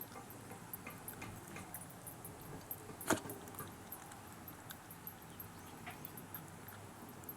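A Shiba inu busy at a treat: a run of small clicks and light jingling, with one sharper click about three seconds in.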